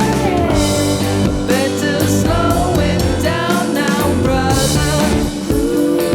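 Rock music: a singing voice over electric guitar and drums.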